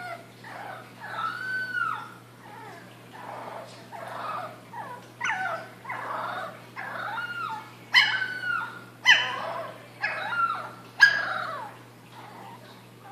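Boston Terrier puppy howling and whining: a string of about ten short, pitched calls that rise and fall, the loudest three coming as sharp yelps in the second half.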